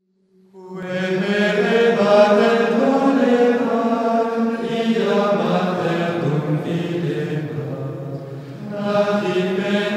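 Chanted singing with long held notes, fading in about half a second in and moving to a new phrase near the end.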